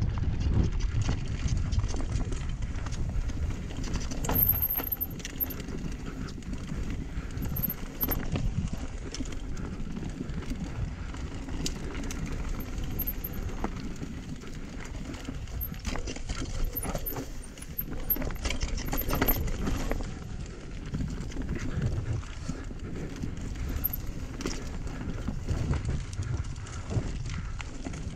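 Mountain bike being ridden over a rough, rocky trail: the tyres, frame and components rattle and knock continually over loose rock, under a steady wind rumble on the camera's microphone.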